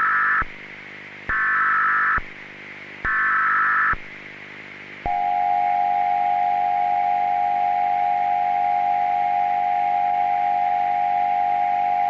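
Emergency Alert System tones. The last two of three screechy data header bursts, each about a second long, are followed about five seconds in by the steady two-tone attention signal, which holds. A faint hiss and hum lies beneath.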